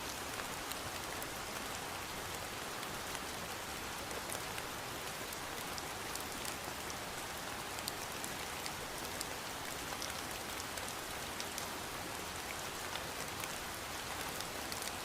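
Steady rain falling, a dense even hiss dotted with the small sharp ticks of individual drops striking a surface.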